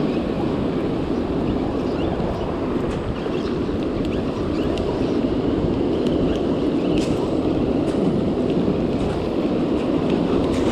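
Waves breaking and washing up over a pebble shore, with wind buffeting the microphone: a steady rushing noise with a few faint ticks.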